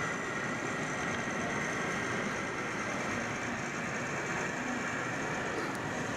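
O gauge model diesel railcar running steadily along the track, its motor and wheels on the rails giving an even running sound.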